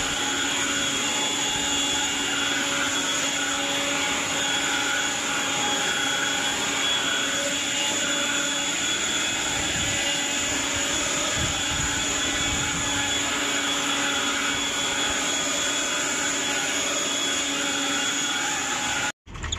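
Handheld leaf blower running steadily at full speed with a high whine, blowing dirt and clods of dried mud across a concrete floor. The sound cuts off suddenly near the end.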